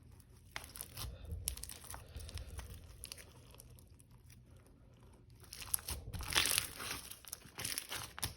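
Hands stretching and pressing a sticky clear slime that is still absorbing its activator, giving small crackling and tearing sounds, sparse at first and busier and louder from about five and a half seconds in.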